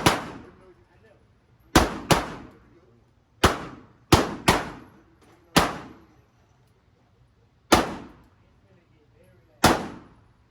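Gunshots, about nine irregularly spaced, some in quick pairs. Each is a sharp crack with a short echoing tail.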